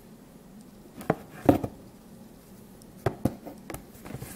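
A plastic DVD case being handled, giving a scattered series of sharp taps and clacks. The loudest cluster comes about a second and a half in, and a few more follow about three seconds in.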